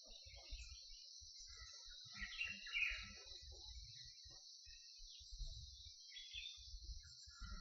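Forest dawn chorus: a steady, high buzz of insects runs throughout, with scattered bird calls over it, the loudest a short call about two to three seconds in. Faint low rumbles come and go underneath.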